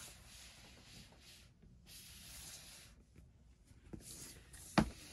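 Cardboard box being turned and handled, giving a few stretches of soft rubbing and scraping. There is a single sharp knock near the end.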